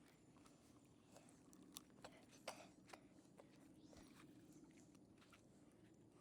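Near silence: a faint low hum with a few faint, scattered clicks, most of them about two to three seconds in.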